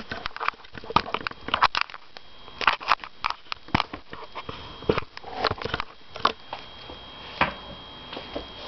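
A run of irregular sharp clicks and light taps, several a second in bunches, from hands working at a laptop. They thin out over the last second or two.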